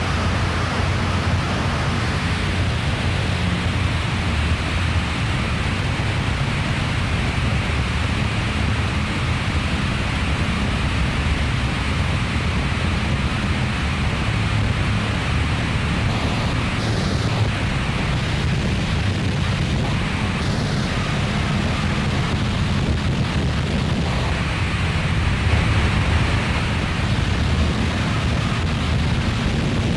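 Electronic noise drone: a heavy low rumble under a dense, steady hiss, with no beat, swelling slightly near the end.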